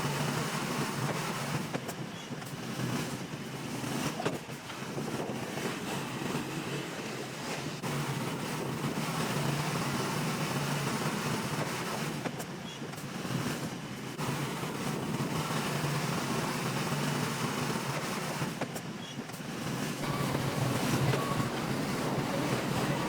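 Bulldozer diesel engine running under work, its loudness swelling and easing, with a few brief knocks.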